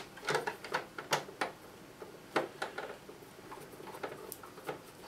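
Screwdriver turning a screw in the plastic back case of a National RX-5100 boombox: irregular small clicks and scrapes.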